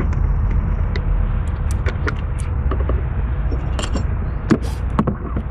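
Handling noise from an Elite Engineering e2 catch can and its bracket being tried against parts of the engine bay: scattered light clicks and knocks, a few sharper ones about four to five seconds in, over a steady low rumble.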